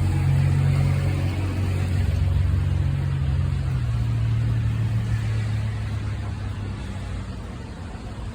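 Low rolling thunder rumble that swells and then slowly fades away, over a steady hiss of rain.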